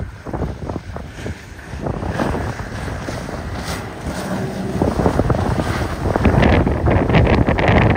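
Wind buffeting the microphone over the engine and wake of a motorboat passing close at speed. The noise grows louder and rougher in the second half.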